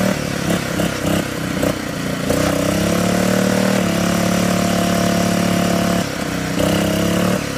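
Riding lawn mower's small engine running hard through deep mud. Its note breaks up and dips a few times, then picks back up.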